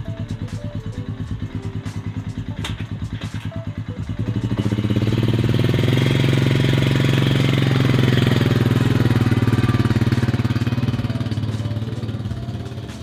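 ATV engine running at a low idle, then opening up about four seconds in and running harder under load as it tows a boat trailer, easing off near the end.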